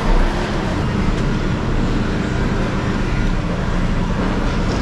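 Steady mechanical background noise of a working scrap-metal yard, machinery and vehicles running, with a faint steady hum for a couple of seconds in the middle.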